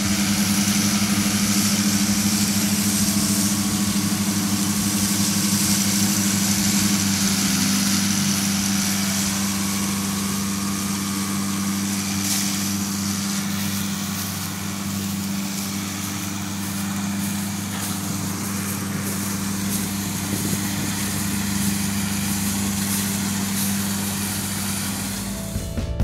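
Tractor engine running at a steady speed, a constant drone, over a steady rushing hiss of blowing air and dust from the orchard machinery.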